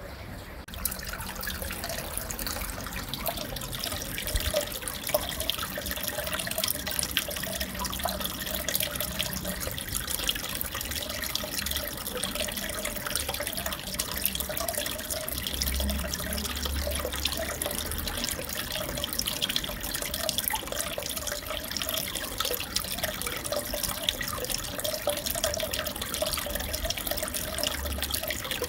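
Aquarium water running and splashing steadily, with fine bubbling clicks and a low hum underneath.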